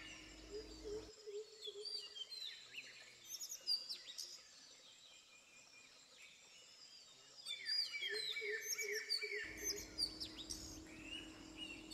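Small birds chirping and calling over and over, with quiet outdoor background noise; the calls thin out in the middle and pick up again in the last few seconds.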